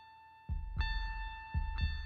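Background music: a held keyboard note, joined about half a second in by a low, pulsing double beat like a heartbeat, about once a second.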